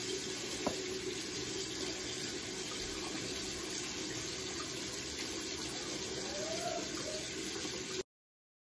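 Bathroom sink tap running steadily, water pouring into the basin. The sound cuts off suddenly near the end.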